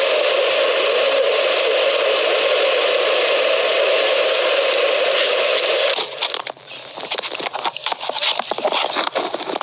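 A loud, steady hiss that cuts off abruptly about six seconds in, followed by scratchy rustling and clicks, as of clothing rubbing against a body-worn camera's microphone.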